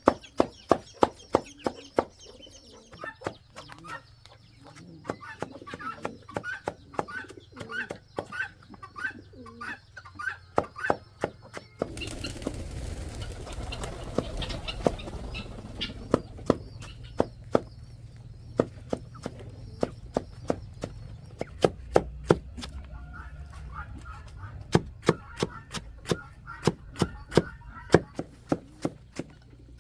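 Rhythmic chopping, sharp knocks of a blade on a board at about two strikes a second, with chickens calling in short repeated chirps. A few seconds of rushing noise come in about twelve seconds in.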